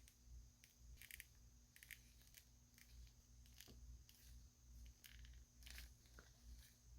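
Faint, scattered clicks and light rustles of a plastic action figure and its packaging being handled, over a low steady hum.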